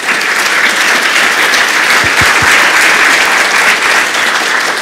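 Audience applauding after a talk: dense clapping from many hands, beginning to die down near the end.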